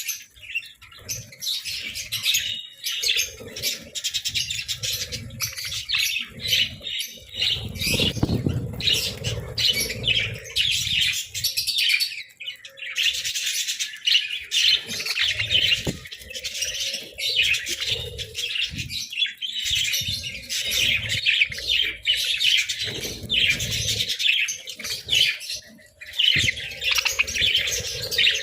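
Several budgerigars chirping and chattering continuously in quick, high twittering notes, with occasional lower warbles and soft thumps and rustles.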